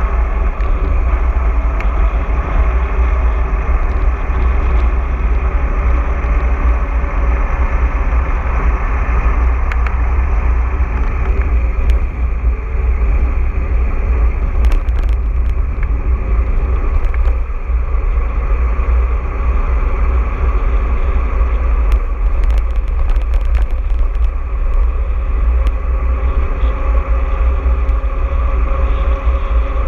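Steady wind rumble on the action camera's microphone, with tyre and frame noise from a mountain bike being ridden. Scattered clicks and rattles come through, thickest about two-thirds of the way in.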